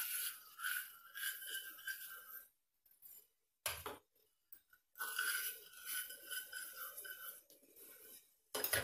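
Granulated sugar pouring in two spells, each a few seconds long, with a knock between them. It is two cups of sugar going into the water just brought to the boil for corn flour halwa.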